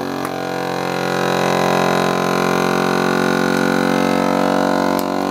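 FoodSaver FFS002 vacuum sealer's pump starting up and running with a steady droning hum as it draws the air out of the bag, the vacuum stage before the heat seal. A small click about five seconds in.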